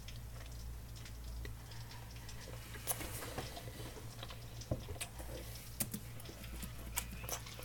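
Scattered sharp clicks and crackles of hands handling candy packaging, the loudest about three seconds in and several more in the last few seconds, over a steady low hum.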